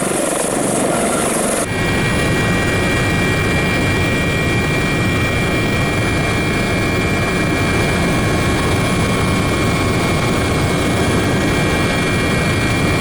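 Dauphin helicopter's turbine engines and rotor running steadily, a loud rumble with a high whine. The sound changes abruptly a couple of seconds in, after which several steady whining tones stand out.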